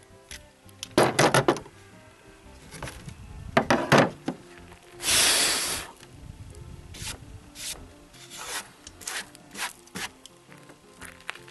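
Handling noise from the hinge jig and wooden cabinet door: scattered knocks and rubs, with a louder scraping rub lasting about a second about five seconds in. Faint background music underneath.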